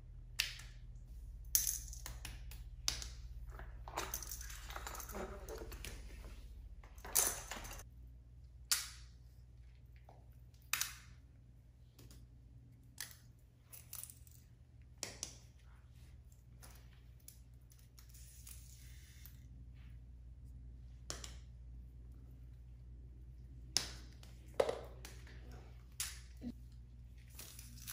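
Hands setting plastic fidget toys down on a foam mat and picking them up: irregular sharp clicks and knocks, about a dozen, with short stretches of rustling between them.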